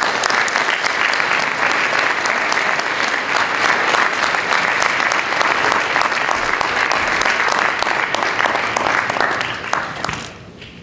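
Audience applauding: dense, steady clapping that dies away about ten seconds in.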